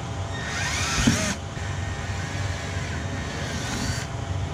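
Cordless drill with a 1/4-inch bit running as it drills through the car's front bumper. It runs in two bursts: the first stops about a second in, and the second starts about halfway through and stops near the end.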